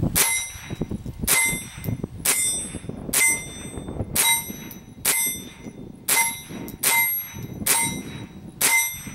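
Winchester Model 63 .22 LR semi-automatic rifle (a Miroku-made reproduction) fired about ten times in steady succession, roughly one shot a second. Each crack is followed by a short metallic ring.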